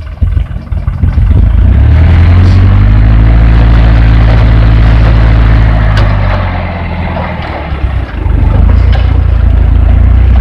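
Dump truck engine revved up and held at high revs to drive the hydraulic hoist as the tipper body lifts to dump its load of soil. The revs ease off about six seconds in and climb again about two seconds later.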